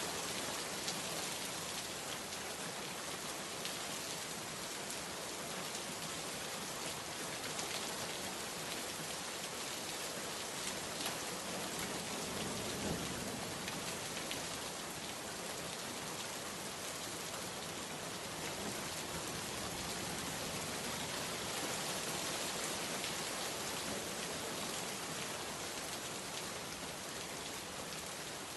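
Steady rain falling, a continuous hiss with scattered individual drop ticks.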